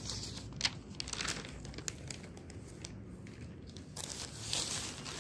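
Newspaper pages rustling and crinkling as the paper is handled and turned, in a few irregular bursts of crisp paper noise with the odd sharp crackle.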